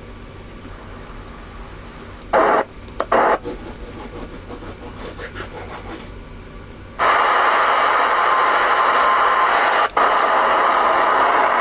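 Alpha 10 MAX AM-1000 radio's speaker on the air: a few short loud bursts of received sound, then from about seven seconds in loud steady static hiss, broken once briefly near ten seconds.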